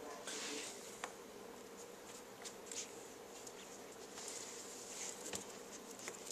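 Faint steady buzzing hum under scattered small clicks and scuffs of a puppy pawing and nibbling at a hand on a wooden floor.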